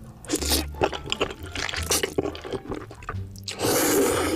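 Close-miked eating of sticky, saucy instant fire noodles: short wet squishing and clicking sounds, with a louder, longer wet noise near the end.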